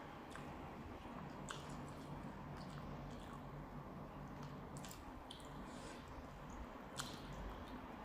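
Close-miked chewing of noodle soup, soft wet squishing with a few short sharp mouth clicks, picked up on a lapel microphone over a steady low hum.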